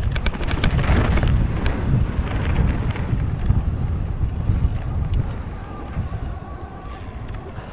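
Mountain bike descending a dirt trail at speed: wind buffeting the microphone over a heavy rumble of tyres and frame. Sharp clicks and rattles cluster in the first three seconds.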